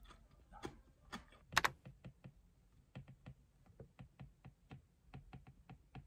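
Stylus tip tapping on a tablet's glass screen while writing: quick, light ticks about four or five a second, with a few louder clicks in the first couple of seconds.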